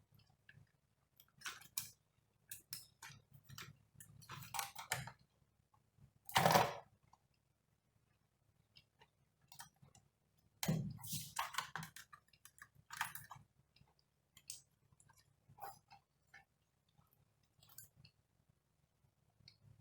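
Small clicks, taps and scrapes of hands working on laptop internals while fitting a RAM module, with louder handling noises about six and a half seconds in and again around eleven seconds.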